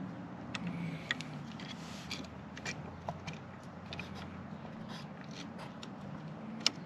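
Scattered light clicks and scrapes of metal parts being handled as a motorcycle floorboard's hinge and spring are worked into their mounting bracket, with a sharper click near the end.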